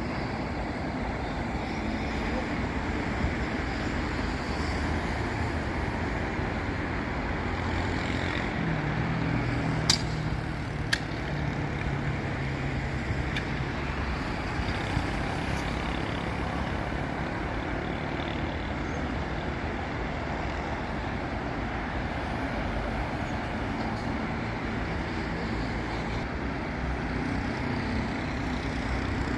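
Steady city avenue traffic: cars and buses passing in a continuous wash of engine and tyre noise. A heavy vehicle's low engine drone swells about a third of the way in, with two sharp clicks or knocks a second apart around the same time.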